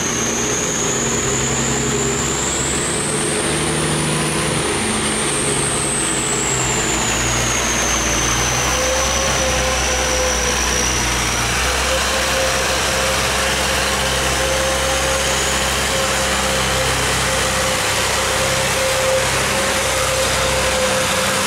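Boat engines running steadily as a tug tows a barge against a strong current, over the rush of churning water through a sluice gate. A high whine rises and falls in the first several seconds, and a steady hum comes in about nine seconds in.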